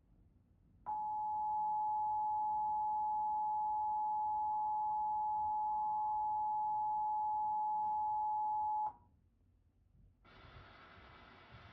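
The Emergency Alert System attention signal: a steady two-tone beep, two pitches sounded together, starting about a second in and holding for about eight seconds before cutting off sharply. It is part of a monthly EAS test broadcast.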